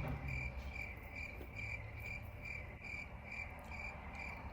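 Microwave oven's electronic beeper: a high tone pulsing evenly about three times a second, signalling that the cooking time is up.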